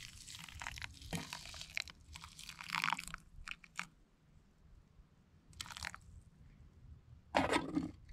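Hot water poured from a camp pot onto dry couscous in a small camp pot, a splashing, crackling hiss for about the first three seconds. A few light clicks follow, and near the end a louder clatter as the larger pot is set down over the small one.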